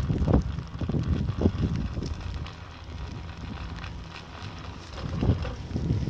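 Wind buffeting the microphone, an uneven low rumble that eases off in the middle and picks up again near the end.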